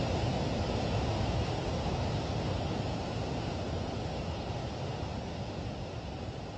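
Heavy rain pouring down, a steady rushing hiss that slowly eases off.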